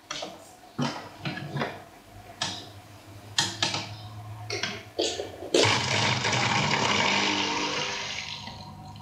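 Water in a small glass aquarium: a few irregular sharp splashes and clicks, then a sudden loud rush of splashing water that fades away over about three seconds, with a low electric pump hum underneath.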